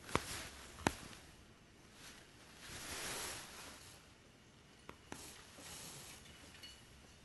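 Hand-sewing of heavy cloth: needle and thread drawn through fabric, with soft rustling of the cloth. Two small clicks in the first second, a longer swishing rustle about three seconds in, and a few faint clicks later.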